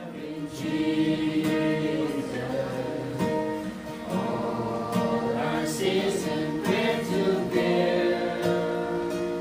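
Group of voices singing a worship song together, with an acoustic guitar strummed along.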